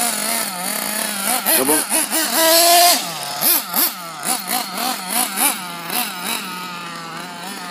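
Losi nitro RC buggy's small two-stroke glow engine running hard, its pitch rising and falling over and over as the throttle is worked.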